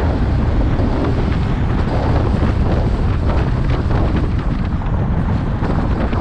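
Loud, steady wind buffeting the microphone, mixed with low road rumble from a car driving along.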